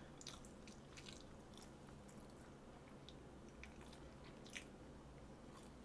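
Near silence, with faint, scattered soft clicks of quiet chewing close to the microphone.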